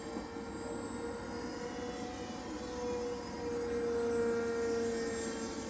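Electric motor and propeller of a small RC flying wing whining steadily in flight, getting a little louder about four seconds in, with wind rumbling on the microphone.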